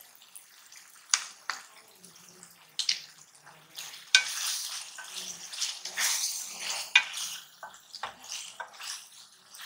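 Chicken karahi being stir-fried in a metal karahi with a wooden spatula: sizzling and scraping, with sharp knocks of the spatula against the pan starting about a second in.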